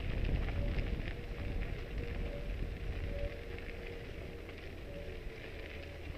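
Gravel crunching as someone moves along a gravel path, a steady crackle with scattered sharper ticks, over a low rumble of wind on the microphone.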